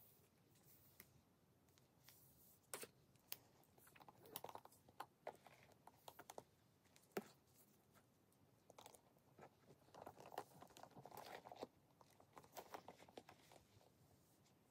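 Faint handling of a leather crossbody bag strap and its metal hardware: scattered soft clicks and taps of a buckle and swivel snap hook, with leather rustling, as the clip is fastened to the bag and the strap is laid out.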